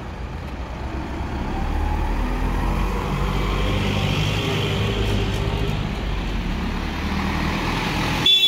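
Rescue trucks' engines running as the vehicles move off, with a short horn toot near the end.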